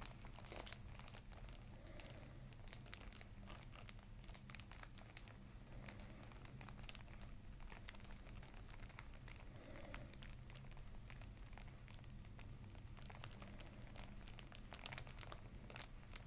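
Faint crinkling and scratching from fingers working at the back of the neck and skull, rustling the hair and the paper cover of the headrest, over a steady low room hum.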